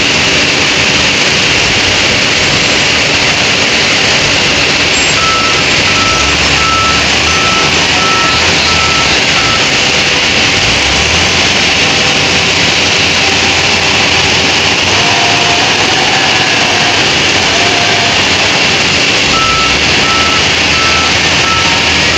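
LOVOL wheel loader's diesel engine running steadily as it works, with a reversing alarm beeping a little faster than once a second for several seconds about a quarter of the way in, then again near the end.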